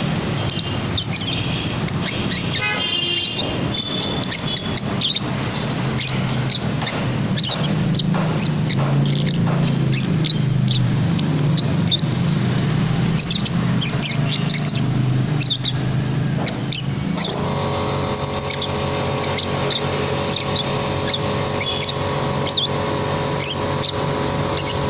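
A baby lovebird calling nonstop in the raspy, snoring-like chatter that lovebird keepers call 'ngorok': short, high chirps repeating several times a second. Over a low steady hum, a steady droning tone joins about two-thirds of the way in.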